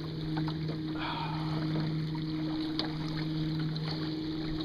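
Small waves lapping against a canoe hull, with faint scattered ticks, over a steady low hum.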